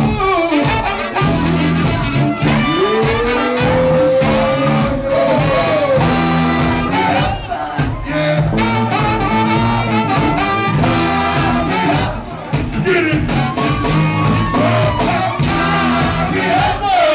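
Live funk band playing loudly, heard from the audience: a repeating bass line and drums, with singing and horn lines gliding on top.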